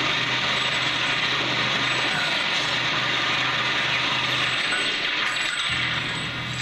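A steady, dense mechanical rattling noise over a low hum, fading somewhat near the end.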